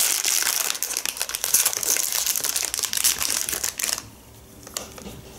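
A small packet wrapper crinkling and crackling as it is handled and opened by hand. It stops about four seconds in.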